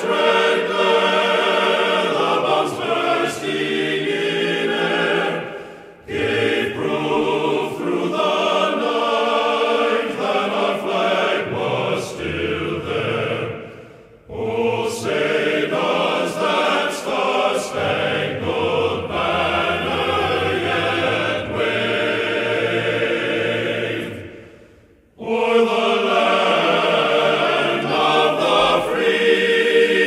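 Choir singing slow, sustained chords, fading to brief pauses three times.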